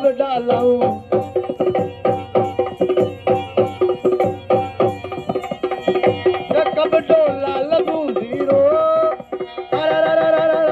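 Live Rajasthani folk music for Kalbeliya dancing: a hand drum beating a quick, steady rhythm under held harmonium notes. The drumming drops out briefly about nine seconds in.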